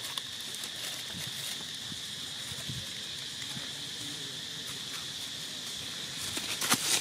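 Steady, high-pitched insect drone, with a brief burst of crackling from dry leaf litter near the end.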